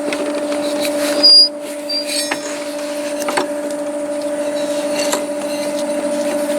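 Clicks and metal knocks of a mower deck belt being worked off its pulleys, with one short, high squeak about a second in, over a steady droning hum.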